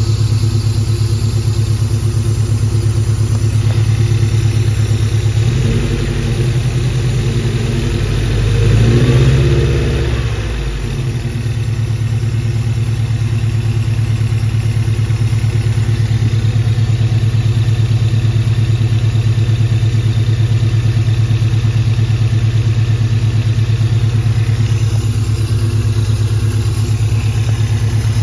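Toyota 3RZ-FE 2.7-litre four-cylinder engine idling roughly, with one brief rev that rises and falls about nine seconds in. It is running on three of its four cylinders because the number 1 fuel injector is unplugged.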